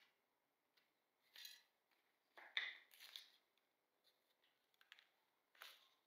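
Several short, light handling sounds from hand work, irregularly spaced, the loudest about two and a half seconds in.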